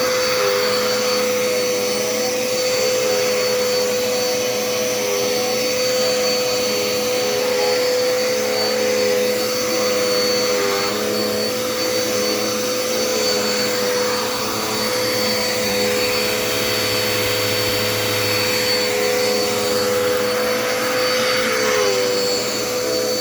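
Dirt Devil Endura Reach bagless upright vacuum running steadily while sucking up scraps of paper, its motor whine wavering slightly in pitch now and then.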